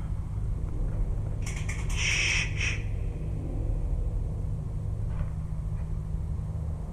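Steady low rumble of road traffic carried down into a storm-drain tunnel. About two seconds in there is a short cluster of sharp, hissy strokes.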